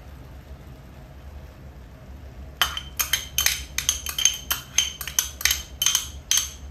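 About a dozen quick, sharp clinks with a short ring, roughly three a second, starting a couple of seconds in: a spoon knocking against a bowl as diced green bell pepper is tipped from it into the wok.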